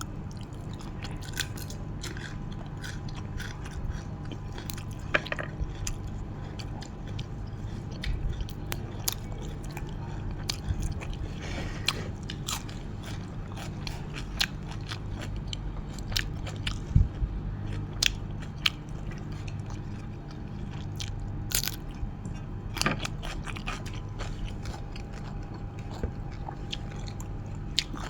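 A person chewing and biting food close to the microphone: wet chewing with frequent short crunches and clicks, while eating nam tok moo, a spicy grilled pork salad. A steady low hum runs underneath.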